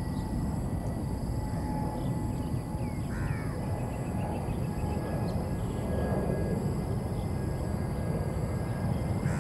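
Crows cawing a few times, with a quick run of short higher notes in the middle, over a steady low rumble.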